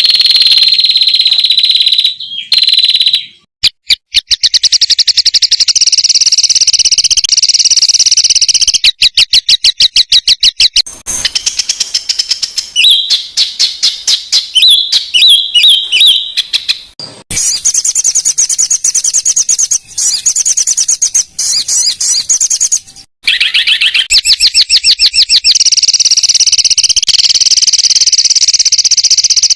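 Loud, high-pitched songbird song made of dense rapid-fire trills and rattles of fast repeated notes, broken by a few short pauses. These are the 'tembakan' phrases played as masteran to tutor competition songbirds.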